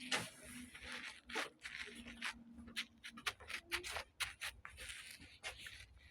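Faint, scattered rustles and small clicks of something being handled, about a dozen short sounds at uneven intervals.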